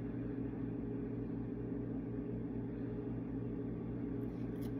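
Steady low hum of a motor or appliance running, holding one even pitch, with a few faint clicks near the end.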